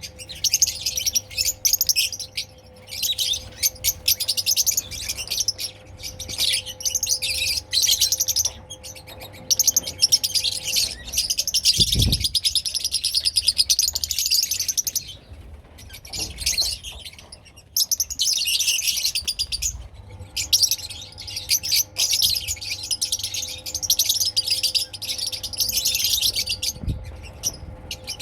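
Parrots chirping and chattering continuously in a dense, rapid stream of high calls, with a few brief pauses. A single low thump about twelve seconds in.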